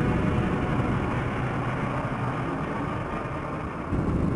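A dense, low rumbling noise with no clear pitch that comes in suddenly, replacing a steady drone, and surges again about four seconds in.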